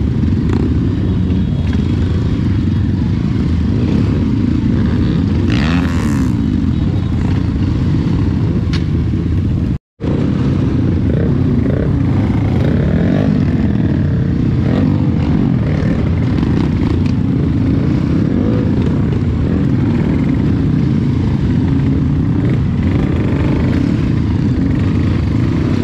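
Off-road trail motorcycle engines running and revving steadily, their pitch rising and falling. The sound cuts out abruptly for a split second about ten seconds in, then carries on.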